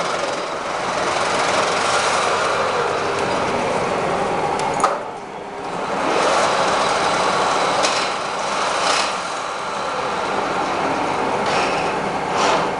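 16K20 screw-cutting lathe running, its motor and headstock gearing making a steady mechanical hum. A sharp click about five seconds in, after which the sound dips for about a second before picking up again.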